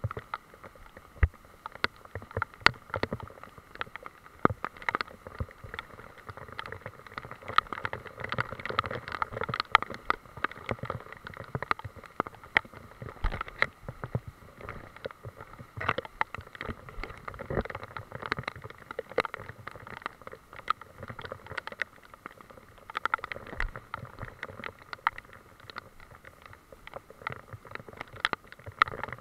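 Rain in wet woodland: a steady hiss of falling rain with many irregular sharp taps and knocks, drops and wet leaves striking the camera as it is moved through the undergrowth.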